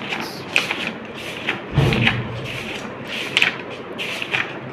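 Paper pages of a textbook being turned by hand: irregular rustling and crisp clicks of the pages, with a dull thump about two seconds in.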